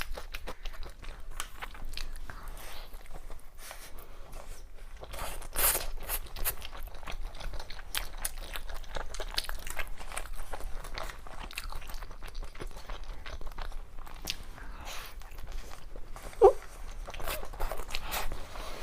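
Close-up eating sounds from convenience-store skewers: repeated biting and chewing with crunchy, clicky bites. A single short, sharp sound stands out about two-thirds of the way through.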